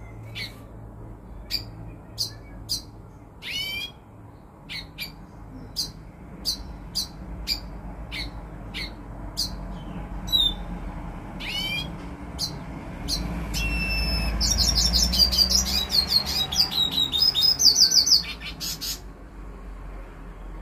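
Caged male Bolivian siskin calling with scattered short, high chirps, then breaking into a fast twittering song about two-thirds of the way through, loudest just before the end.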